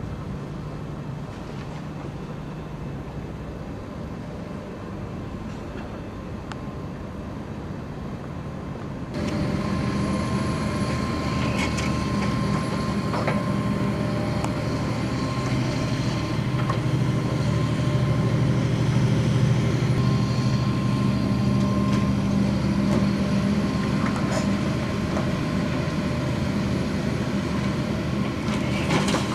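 Diesel engine of a tracked demolition excavator running steadily under load, with a steady high whine and a few scattered knocks. It is fainter at first and gets clearly louder about nine seconds in.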